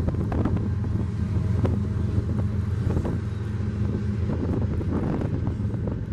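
Diesel freight train passing: the locomotives' engines give a steady low hum as they pull away, with scattered clicks and clanks from the freight cars' wheels on the track. Wind buffets the microphone.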